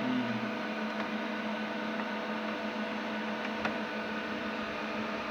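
Steady hum of running machinery with a faint hiss under it, holding several steady tones; one light click about three and a half seconds in.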